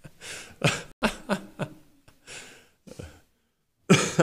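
A man's stifled laughter through a hand held over his mouth: short separate bursts of breath and voice about a second apart, with a louder burst near the end.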